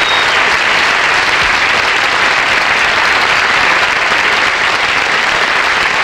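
Studio audience applauding steadily.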